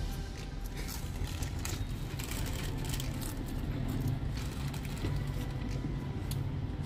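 Potato chips being crunched and foil chip packets crinkling, heard as many short sharp crackles over a steady low rumble.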